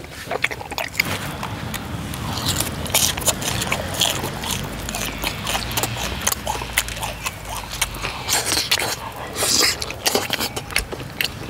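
Close-miked eating of tteokbokki rice cakes and fried foods in a thick spicy sauce: wet chewing and slurping with many short clicks, and a few hissing breaths through the lips.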